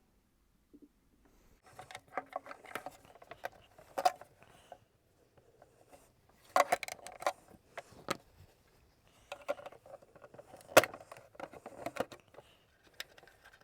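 Small clicks, rattles and scrapes of hand tools and metal against the plastic housing of a Miele S234i vacuum cleaner while a tiny retaining spring is worked free. The sounds come in three spells, with a sharp click about eleven seconds in the loudest.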